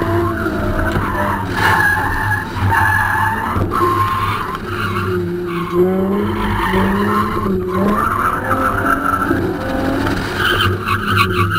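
Infiniti G35 Coupe drifting: its tyres squeal through repeated slides while its 3.5-litre V6 engine rises and falls in revs, heard from inside the car.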